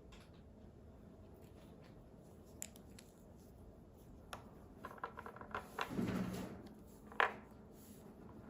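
Faint handling of a doll and its packaging: scattered light clicks and taps, then a short stretch of rustling and scraping about five to six seconds in, and one sharp click about a second later.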